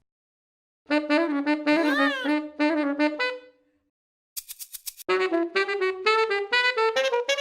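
Music played on a wind instrument: a short phrase with a pitch bend up and down, then a few clicks and a quick run of short notes climbing step by step.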